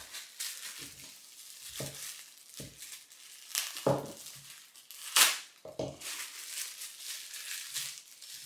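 Packaging crinkling and crackling as products are unwrapped and handled, with a few light knocks and clinks; the sharpest crackle comes about five seconds in.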